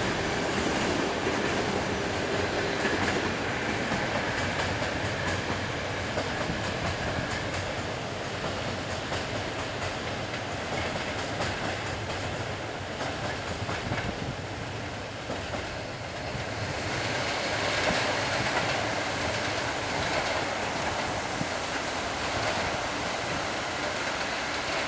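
Passenger coaches of an EP09-hauled express train rolling along the track, with a steady rumble and wheels ticking over the rails. The sound changes abruptly about two thirds in.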